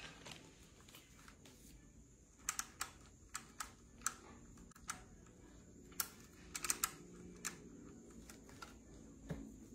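Handheld price-tag labeler gun clicking as its handle is squeezed: a dozen or so sharp clicks at irregular intervals, some in quick runs of two or three.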